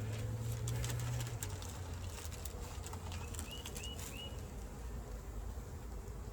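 Honeybees buzzing close by as a low hum, strongest in the first second or so and then fading, with birds calling in the background: a short run of four quick chirps near the middle. There are a few light clicks from hive handling.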